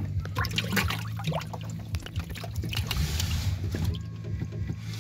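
Water splashing and pouring in a boat's livewell, churned by the inflow from its inlet nozzle, with the fish stirring it. Irregular splashes for the first few seconds ease into a steadier rushing, over a low steady hum.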